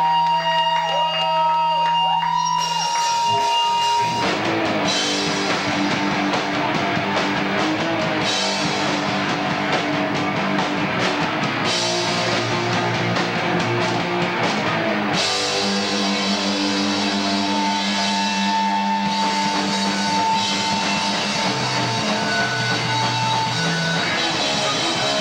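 Live rock band with drums, electric guitars and bass. A held tone rings over a low note for the first few seconds, then the drums and full band come in and play on loudly.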